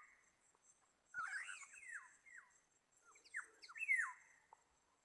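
Black-naped oriole calling: two phrases of fluty, gliding whistled notes about two seconds apart.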